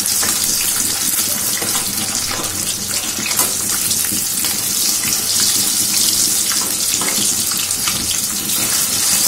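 Marinated rohu fish pieces frying in hot mustard oil in a kadhai over a high flame: a steady sizzle with many small crackles and pops.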